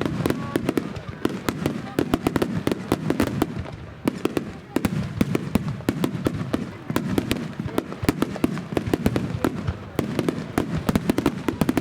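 Wide starmine fireworks barrage: a dense, irregular string of sharp bangs and pops, several a second, from shells launched and bursting in rapid succession.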